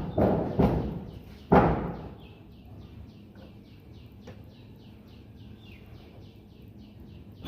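Three loud knocks, two close together at the start and one about a second and a half in, then a small bird chirping over and over, short high chirps at about three a second.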